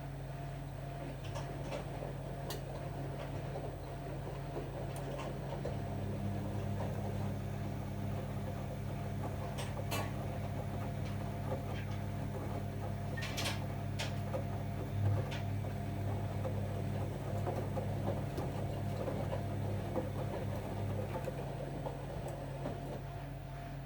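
Bosch Avantixx 7 washing machine turning its drum during the wash: the motor hum strengthens about six seconds in and eases off near the end, with a few sharp clicks along the way.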